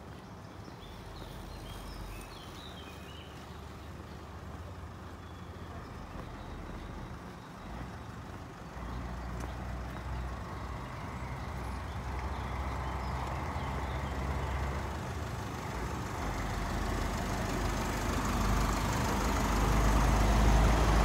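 Road traffic on a town street: a steady low engine rumble and tyre noise from passing vehicles, growing gradually louder through the second half.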